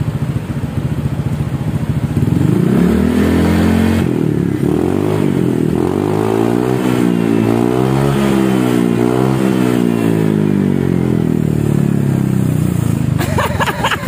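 Honda ADV 150's single-cylinder four-stroke engine running through a PCX160-style aftermarket racing exhaust. It idles, is revved up about two seconds in, and is held at higher revs with the pitch rising and falling with the throttle, then falls off near the end with a few sharp clicks.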